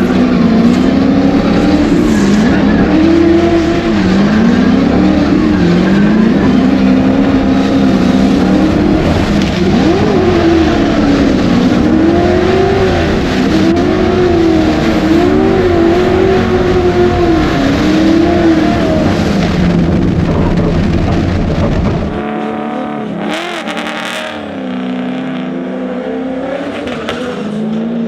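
V8 drift car engine revving hard and falling back, over and over, with tyre noise as the car drifts on track. The sound changes suddenly about 22 seconds in: the deep low end drops away.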